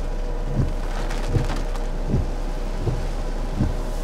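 Rain on a car, heard from inside the cabin over a steady low hum, with a low thump about every three-quarters of a second from the windshield wipers sweeping.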